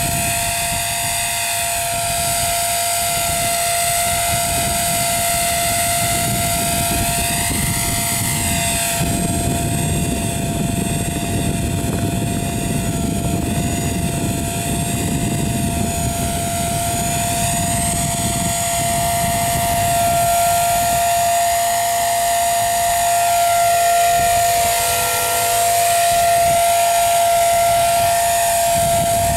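Blade 300 CFX electric RC helicopter in flight: a steady high whine from its electric motor and drivetrain, with the buzz of the spinning main and tail rotors. The pitch rises and falls several times as it manoeuvres.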